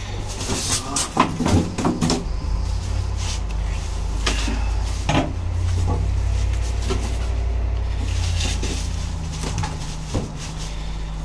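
A metal tool cart and its cardboard packing being handled during unboxing: scattered knocks and scrapes, some sharp, over a steady low rumble.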